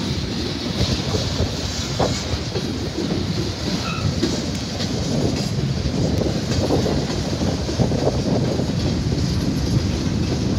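Loaded CSX coal hopper cars rolling steadily past, a continuous rumble of steel wheels on rail with a few clacks as wheels pass over the rail joints.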